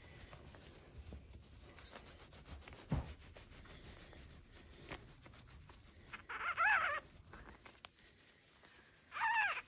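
Newborn puppy crying twice, short high squeals that rise and fall in pitch, the second near the end. A single soft knock about three seconds in.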